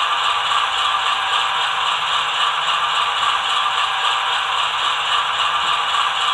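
ESU LokSound decoder in a ScaleTrains HO GE C44-9W model playing the locomotive's diesel engine at idle through the model's onboard speaker, a steady sound with no breaks.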